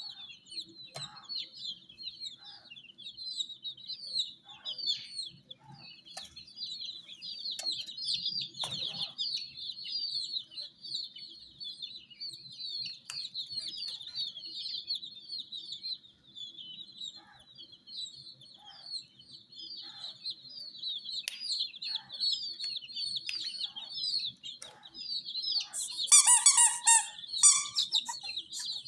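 A brood of baby chicks peeping continuously, many short high chirps overlapping without a break. Near the end one or more chicks give a louder, fuller run of peeps.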